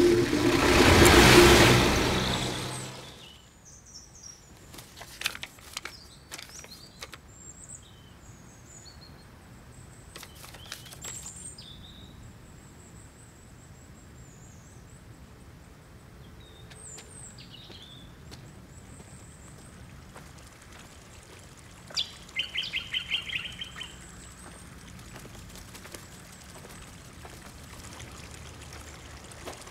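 A truck's engine noise, loud at first, fades away within about three seconds as it drives off. Then quiet countryside ambience with scattered high bird chirps, and a short rapid trill a little past twenty seconds in.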